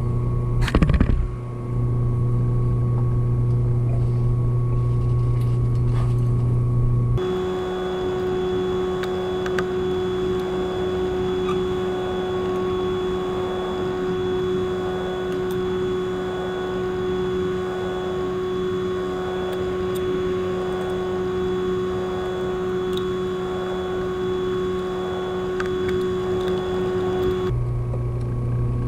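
Electric motor humming steadily, with a few light metal clicks about a second in. About seven seconds in the hum abruptly changes to a higher drone with a slow pulsing, and switches back to the first hum shortly before the end.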